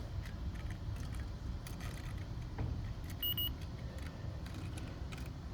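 Fieldpiece DR82 refrigerant leak detector sounding over the leaking evaporator coil: irregular ticking with a short double high beep about three seconds in, signalling refrigerant at the leak. A low rumble runs underneath.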